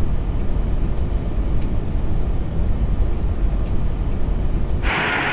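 Steady rumble of airflow and engine noise on the Airbus A380 flight deck on short final. Near the end, a sudden steady hiss cuts in and the low rumble drops away.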